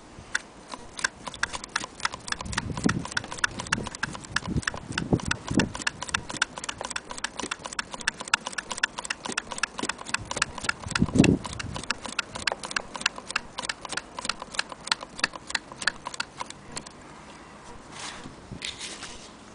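Antique Willcox & Gibbs chain-stitch sewing machine running, its mechanism clicking evenly about five times a second. A few dull knocks come along the way, and the clicking stops near the end.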